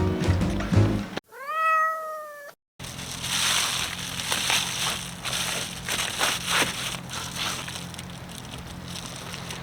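A single cat meow about a second and a half long, rising and then slowly falling in pitch, set between cuts of dead silence like an edited-in sound effect. After it comes irregular crackling and rustling over a steady low hum.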